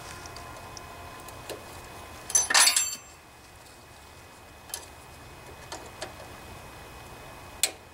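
Metal hand tools clinking: a socket on an extension is fitted onto the rocker-arm adjusting nut of a Briggs and Stratton OHV engine, with a ringing metallic clatter about two and a half seconds in, then a few light clicks and one sharp click near the end.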